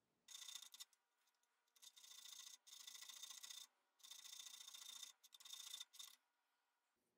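Narrow handmade file scraping across the lead screw of a forged auger bit, cutting the thread groove. About six short, faint strokes, each under a second, with brief pauses between them.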